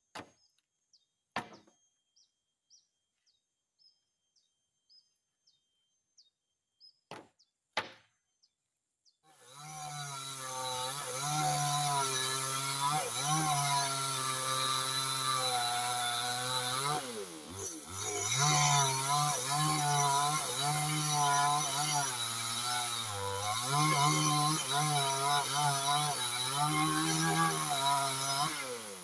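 A few sharp wooden knocks. Then, about nine seconds in, a two-stroke chainsaw starts running loudly and rip-cuts lengthwise along a coconut trunk section, its engine pitch dipping and recovering a couple of times under load.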